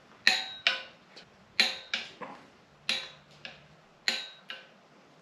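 Click-type torque wrench tightening the 12 mm bolts of an engine's rear main seal housing to 22 foot-pounds. Sharp metallic clicks come in four groups, mostly pairs, about every second and a half.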